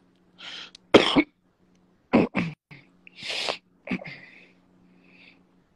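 A person coughing in a string of short, harsh bursts, the loudest about a second in, with some throat clearing, heard through a live-stream phone call over a low steady hum.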